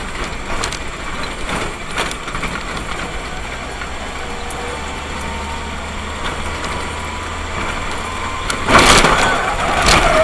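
Steady engine and road noise inside a moving car, with a low engine hum. About nine seconds in, a loud, harsh rushing burst.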